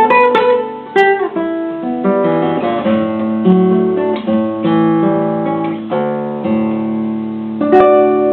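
Acoustic guitar playing a choro: plucked melody notes and chords, closing on a sharply struck chord near the end that is left ringing.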